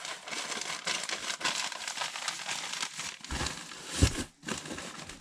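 Newspaper and bubble wrap being rolled up together by hand, a dense crinkling and crackling. Near the end come a few low thumps, the loudest about four seconds in.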